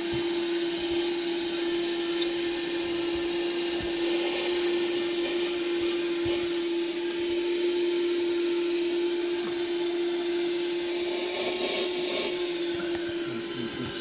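Portable 12-volt car vacuum cleaner running steadily, picking up bits of debris: a constant, unchanging motor hum under an even rush of suction air.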